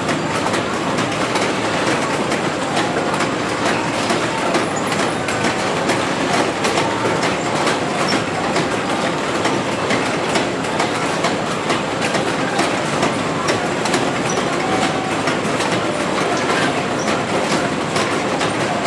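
Steady clattering and clicking of a greenhouse conveyor line running metal carriers along the row, with brief squeaks now and then.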